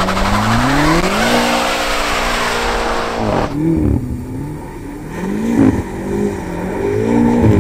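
BMW M8 Competition's 4.4-litre twin-turbo V8 revving up and held at high revs as the rear wheels spin on a wet, slushy road in a donut, under a loud hiss of spinning tyres. After about three and a half seconds it sounds farther off, the revs rising and falling in waves as the car keeps sliding round.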